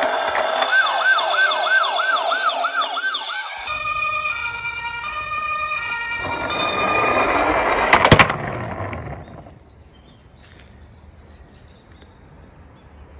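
Toy police car's electronic siren: a fast repeating rising yelp, about three sweeps a second, then a stepped electronic tone pattern. Then a rising rush as the toy rolls down a wooden slope, ending in a loud clatter about eight seconds in, after which only faint background remains.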